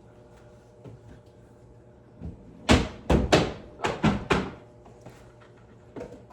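A quick run of about six sharp knocks and clatters in under two seconds: dishes and a cabinet door being handled while dishes are put away in kitchen cabinets. A few fainter knocks follow.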